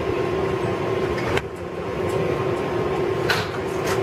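Steady hum and rumble inside an R188 subway car, with two held tones over it. The sound drops a little about a third of the way in, and there are two short clicks near the end.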